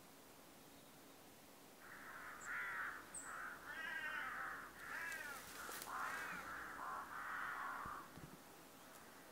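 Crows cawing, a run of harsh repeated caws lasting about six seconds, starting about two seconds in.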